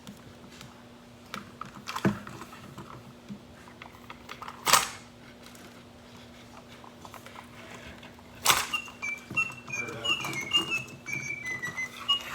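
Toy packaging being handled: small plastic clicks and rustles with two sharp, loud snaps, then a run of short, high whistle-like notes stepping down in pitch near the end.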